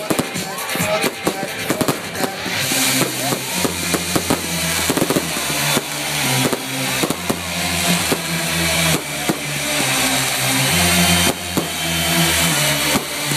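Fireworks popping and crackling over loud party music with a heavy bass line. The pops come thickest in the first couple of seconds, after which the bass-heavy music takes over with scattered bangs.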